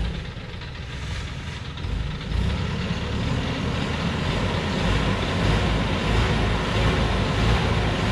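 Diesel engine of a light dump truck pulling hard as it crawls up a steep dirt track, a steady low drone that grows louder about two seconds in.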